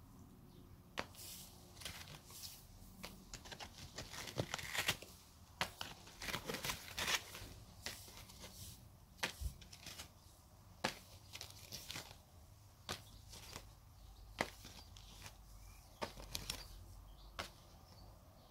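Used triangular detail-sander pads, clogged with stripped paint, dropped one after another onto a pile on a concrete floor: a string of irregular soft papery slaps and rustles.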